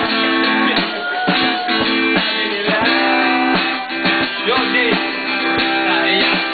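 Acoustic guitar strummed in chords while a man sings along, the voice gliding over the chords.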